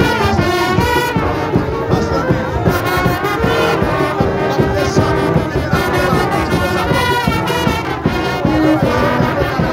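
A brass band of trombones, trumpets and saxophone playing a tune together, with held brass notes over a steady beat.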